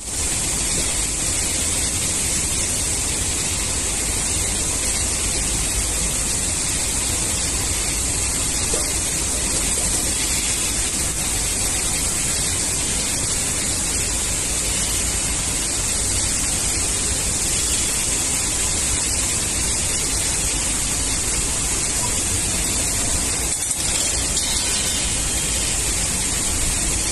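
Steel circular saw blade body spinning on a dynamic balancing machine: a steady, even hiss with a low rumble underneath.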